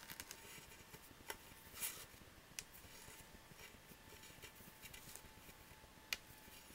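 Near silence with faint rustles and a few soft ticks from hands knotting and tightening embroidery-floss strings, over a faint steady hum.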